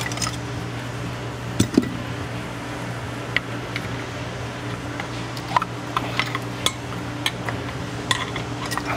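Light metallic clicks and clinks, scattered and irregular, as brake pads are pried out of a front disc-brake caliper bracket. A steady low hum runs underneath.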